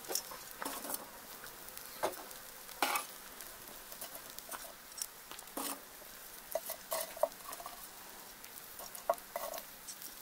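Metal tongs setting charcoal briquettes into the ash in the bottom of a cast-iron camp oven, with irregular light clicks, taps and scrapes about once a second.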